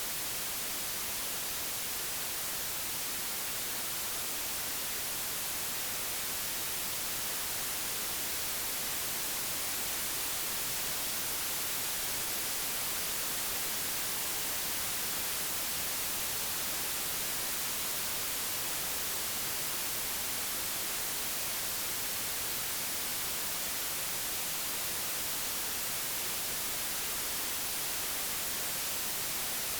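Steady, unchanging white noise: an even hiss across the whole range, strongest in the highs, generated digitally.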